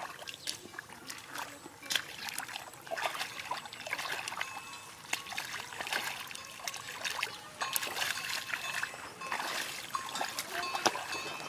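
Hands groping and feet wading in shallow muddy water, with irregular small splashes, drips and trickles of water and mud.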